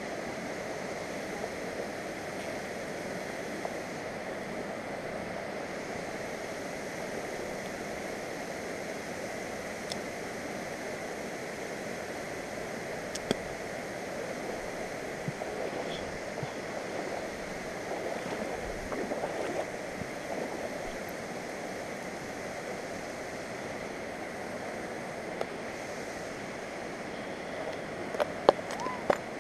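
Steady rush of flowing creek water, with a few sharp clicks near the end.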